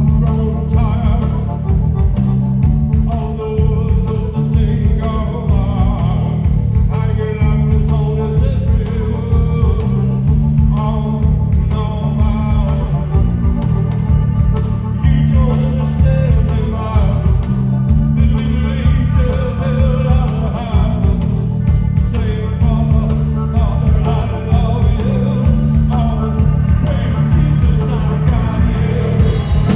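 Live band playing a song with a voice singing over it and a heavy, boomy low end.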